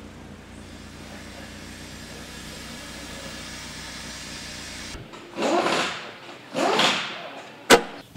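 Steady low hum of a car service garage for about five seconds, then two loud whooshes about a second apart and a single sharp click near the end.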